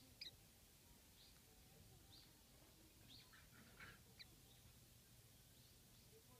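Japanese white-eye giving faint, short, high contact chirps, repeated every second or so, with a sharper call just after the start and a few louder ones a little past the middle.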